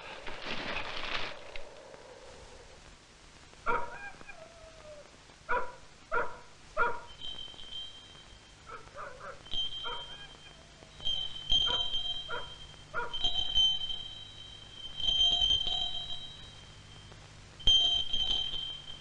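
A dog barking and yelping in short, spaced calls, joined partway through by a high, thin whining in repeated stretches. A brief rush of noise comes first.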